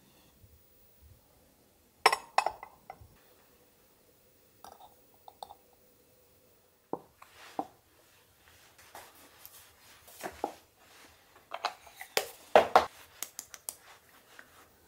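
Small objects being handled: a scattered run of light clicks, taps and clinks with soft rustling between them. The loudest cluster comes about two seconds in and another busy stretch comes near the end.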